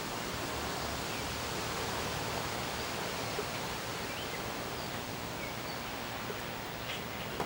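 Steady outdoor background hiss, with a few faint, short high-pitched notes scattered through it.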